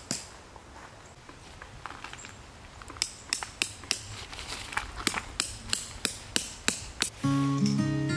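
A tent stake being driven in with a metal-headed stake hammer: a quick, regular series of sharp blows, about three or four a second, starting about three seconds in. Acoustic guitar music comes in near the end.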